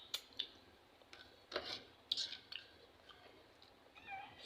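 Faint mouth sounds of eating cooked moringa (malunggay) pods: scattered sharp clicks and wet smacks as the soft flesh is scraped from the pods with the teeth. A cat meows briefly near the end.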